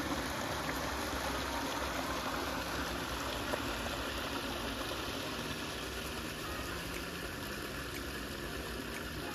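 A small waterfall splashing into a pool: a steady rush of water, a little fainter in the second half.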